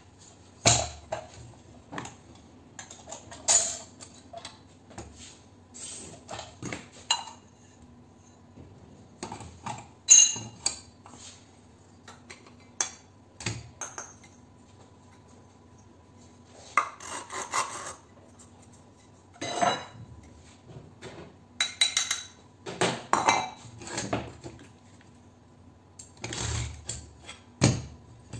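Metal parts of a dismantled LED downlight (finned heatsink, reflector and housing) clinking and knocking as they are handled and set down on a workbench. The knocks come in irregular bursts, with a lull about midway.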